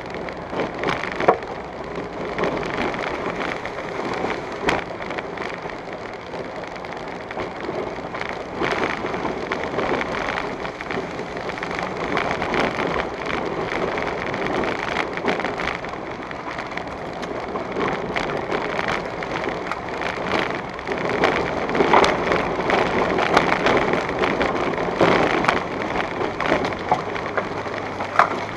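Vehicle driving at low speed over a rutted, stony dirt road, heard from inside the cabin: a steady rumble and rattle of tyres and suspension on the rough surface, with frequent small knocks and a few sharper jolts, getting louder in the last several seconds.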